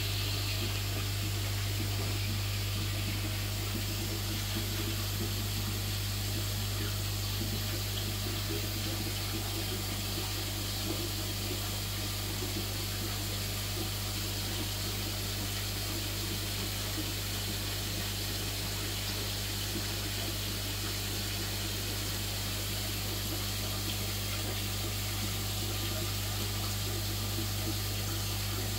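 Steady low hum of an aquarium air pump, with the constant watery bubbling of air-driven sponge filters in the tank.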